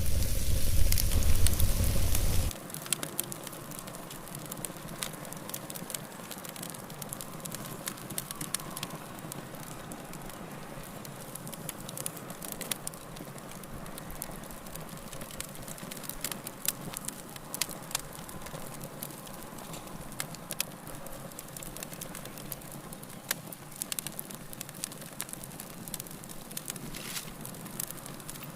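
Wood fire in a fireplace, crackling with frequent sharp pops over a soft steady hiss. For the first couple of seconds a louder rumbling noise covers it, then cuts off suddenly.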